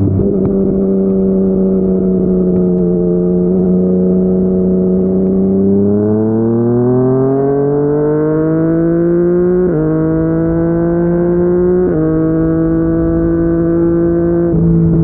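Yamaha MT-09's inline-three engine through a Yoshimura R55 slip-on exhaust while riding: a steady cruise for about six seconds, then the engine speed climbs as the bike accelerates, with two quick upshifts that drop the pitch suddenly about two seconds apart. Near the end the tone dulls as the throttle eases.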